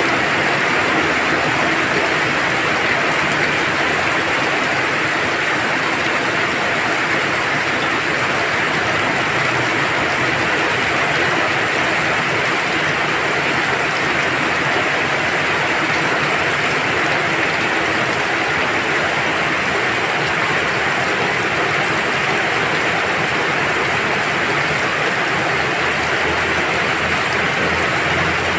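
Heavy rain pouring steadily, a dense, even hiss of drops splashing on a garden pond's surface and on the surrounding stone and plants.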